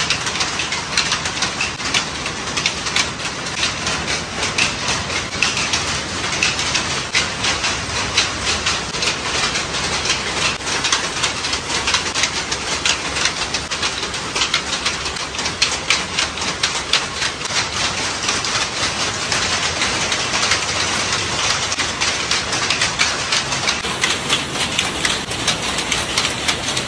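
Several jacquard power looms weaving sarees, running together in a continuous rapid mechanical clatter.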